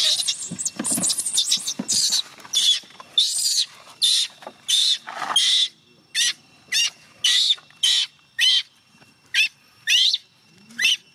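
Baby macaque crying: a rapid string of short, high-pitched distress screeches, about two a second, coming a little further apart in the second half.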